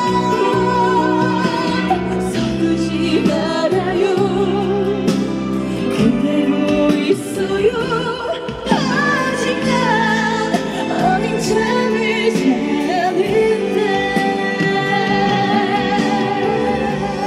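A woman singing a slow ballad live over instrumental accompaniment, holding long notes with vibrato.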